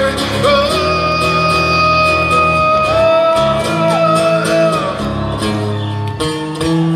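Live rock band music with electric guitar: a long sustained note rings over the bass, then separate picked guitar notes come in near the end.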